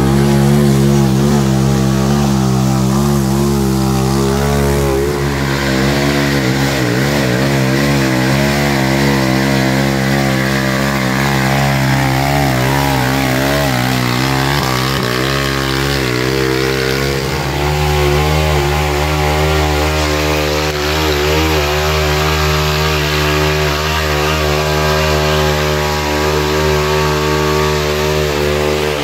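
Off-road go-kart engine running hard on a muddy hill climb, its revs rising and falling, then holding steadier and higher for the last third.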